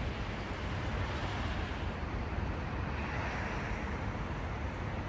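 Steady low rumble of a moving vehicle with an even hiss over it, and a brief swell in the hiss about three seconds in.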